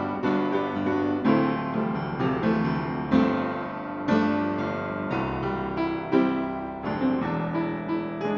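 Steinbacher piano being played: notes and chords struck one after another, each ringing on and fading, with a few louder chords along the way.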